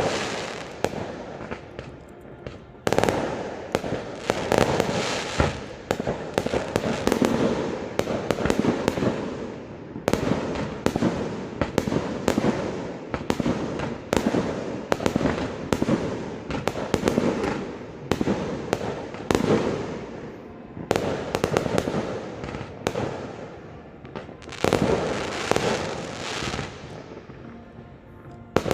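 A fireworks display: a dense, continuous run of bangs and crackles, swelling into louder volleys several times.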